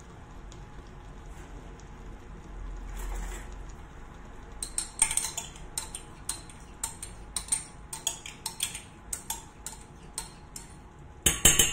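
A metal spoon clinking and scraping inside a glass tea glass, getting the last of the liquid cream out into a saucepan. It makes many quick, uneven taps starting about four and a half seconds in, with a louder clatter near the end.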